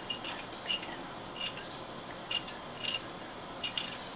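Back of a kitchen knife scraping the thin skin off a fresh ginger root: a run of short, irregularly spaced scratchy scrapes, a few close together near the end.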